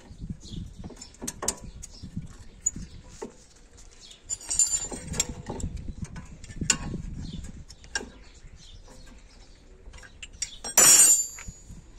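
Steel wrenches clinking, tapping and scraping against a brake caliper as two wrenches are used to lever the brake pads apart. A ringing metal clank comes about four and a half seconds in, and a louder one about eleven seconds in.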